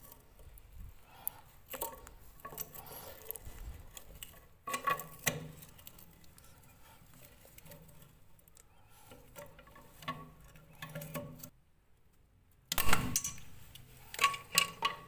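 Irregular clicks, scrapes and knocks of metal against a ceramic toilet tank as the nut on a rusted tank bolt is worked loose from below, with one loud sharp knock near the end followed by a few quick clicks.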